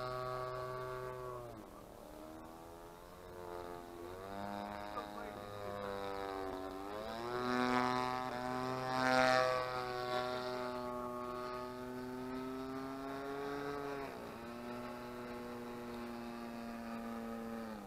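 DLE 20cc single-cylinder two-stroke gas engine running on a chainsaw carburettor, powering a Sbach 342 RC airplane in flight. Its note falls and rises several times and is loudest about nine seconds in. It settles to a lower steady pitch for the last few seconds.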